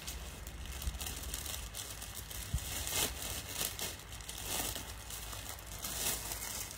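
Plastic bags crinkling and rustling as they are handled, with a few sharper crackles.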